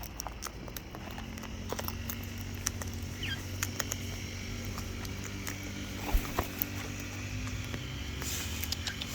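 Scattered clicks and taps of a bird pecking at its food, over the steady drone of garden-maintenance machinery running in the background. A brief high chirp comes about three seconds in.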